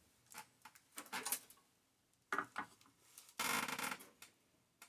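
Small tools and parts being handled on a workbench: irregular clicks and taps, with two brief scraping rustles, the louder one about three and a half seconds in.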